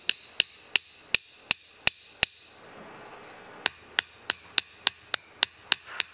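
Tyre stud samples on the tips of rods tapped repeatedly on an asphalt slab, a demonstration of how much noise the studs make. Seven sharp clicks about three a second, a pause of about a second and a half, then a quieter, slightly faster run of clicks.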